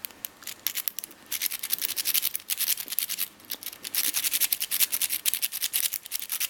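Homemade hacksaw-blade rake pick being worked quickly in and out of a 5-pin euro cylinder lock to set the pins: a fast run of light metallic scraping clicks as it drags over the pin stacks. The clicks are sparse for about the first second, then dense.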